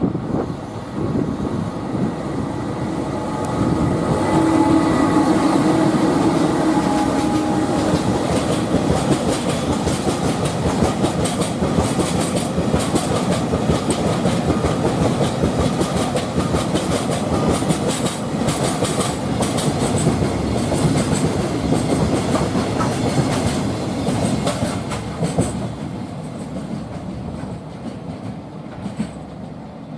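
An EH500 electric locomotive hauling a freight of Taki 1200 tank wagons and Toki 25000 wagons passes close by. Steady tones from the locomotive are heard in the first several seconds, then the wagon wheels clickety-clack over the rail joints, fading near the end as the train moves away.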